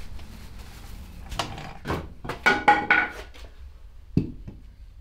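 Handling of a used BMW K100 motorcycle transmission's aluminium casing: plastic bag rustling and a cluster of clinks and rattles with a brief metallic ring about two and a half seconds in, then a single thunk a little after four seconds as the gearbox is set down on the floor.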